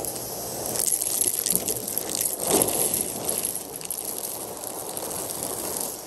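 Numatic Hetty cylinder vacuum cleaner running and sucking up dry mess, the debris crackling and rattling through the nozzle and hose over a steady hiss of airflow. The crackling is densest in the first half, loudest about two and a half seconds in.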